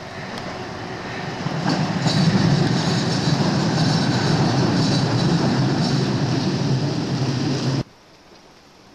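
1938 London Underground tube stock train passing close below, its rumble building over the first two seconds into a loud run of wheel-on-rail clatter with a high metallic hiss, then cutting off suddenly near the end.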